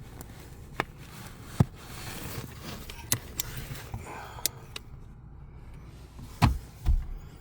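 Handling noise from working in a cramped space under a car's dashboard: scattered sharp clicks and light knocks over a low steady hum, with two heavier thumps near the end.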